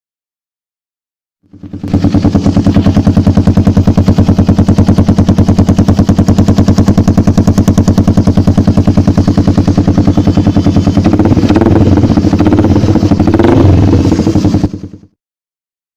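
Yamaha R15 V3's single-cylinder 155 cc engine idling through an aftermarket slip-on exhaust, making a loud, fast, even popping beat. It starts about a second and a half in, rises briefly in pitch near the end, then cuts off abruptly.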